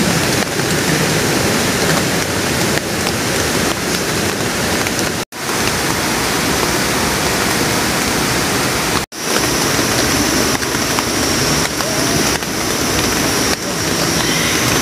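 Steady rush of rain and a rocky forest stream, dropping out for an instant twice. After the second dropout a thin, steady high-pitched tone joins the water noise.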